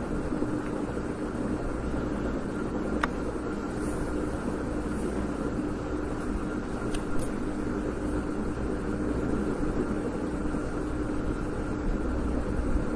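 Steady background noise with a low hum, and a few faint clicks about three and seven seconds in.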